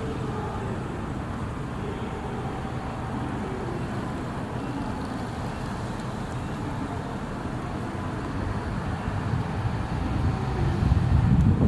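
Steady road-traffic noise from passing vehicles, with a low rumble that grows louder near the end.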